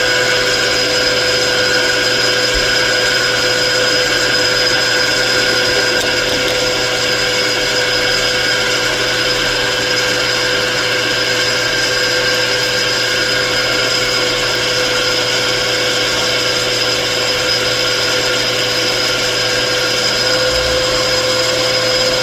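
Machine tool motor and spindle running steadily at constant speed, a level whine with several steady tones over a mechanical hum.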